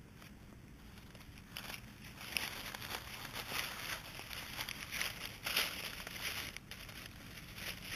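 Dry fallen leaves rustling and crunching as Yorkshire terrier puppies scramble through them, faint at first and then in frequent irregular crackly bursts from about two seconds in.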